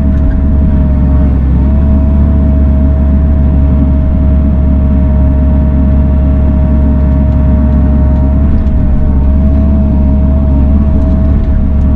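Bobcat E42 mini excavator's diesel engine running steadily while it works the boom and bucket, a loud low drone with a steady whine above it that wavers slightly now and then.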